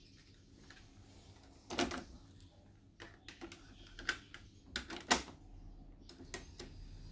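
Mechanical clicks and clacks of an Akai GXC-310D cassette deck being worked by hand: the cassette door springing open about two seconds in, a cassette being handled in the well, the door snapping shut around five seconds in with the loudest clack, then the piano-key transport buttons being pressed near the end.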